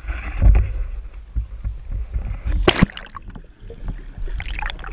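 Wind rumbling on the microphone and water sloshing, then a loud splash about two and a half seconds in as a giant trevally is released over the side of a small boat, followed by muffled underwater bubbling and gurgling.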